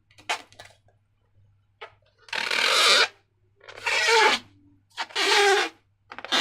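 Slime being handled and squeezed, giving a few small clicks and then four loud rubbing, squishing bursts about a second apart.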